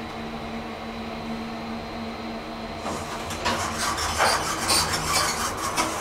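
Elevator car humming steadily, then, about three seconds in, a loud run of rattling and clattering as the elevator's doors open: the sliding glass car doors and the hinged landing door.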